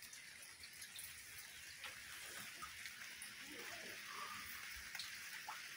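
Faint, steady soft hiss of light drizzle, with a few faint short sounds about four seconds in.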